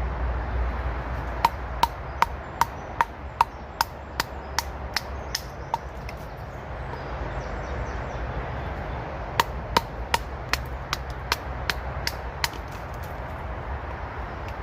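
Batoning a TBS Lynx Compact bushcraft knife through a piece of ash: a baton knocks on the knife's spine in two quick runs of sharp strikes, about two or three a second, with a pause between them. A steady low rumble of motorway traffic runs underneath.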